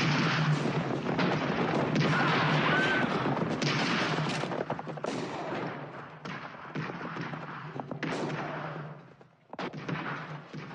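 Gunfire in a night battle: a dense volley of rifle and machine-gun shots for the first four or five seconds, then thinning to scattered single shots.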